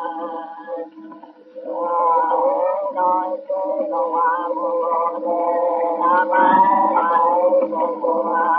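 Pareci song on a 1912 phonograph wax-cylinder recording: singing in short chanted phrases with a brief break about a second in. The sound is thin, with no deep bass or high treble.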